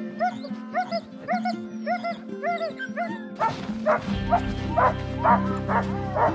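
A team of harnessed sled dogs yelping and whining, eager to run, over background music. A little over three seconds in, louder, sharper barks come in over a steady rush of outdoor noise.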